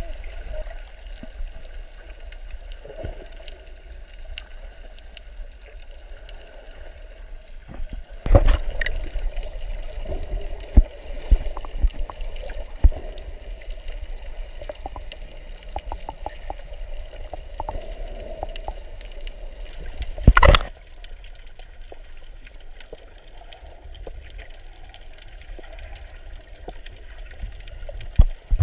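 Muffled underwater sound picked up by a camera in a waterproof housing: a steady low rumble with a faint hum and scattered clicks. Two loud rushing bursts of water come about eight and twenty seconds in.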